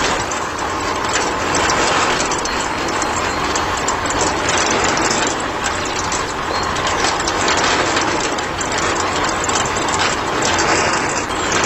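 Small geared electric motor running steadily, a dense whirring with rapid clicking of gears.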